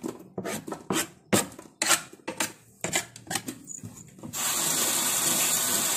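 Knife and fingers scraping and tapping on a plastic cutting board as pineapple peel scraps are cleared away. About four seconds in, a steady hiss sets in.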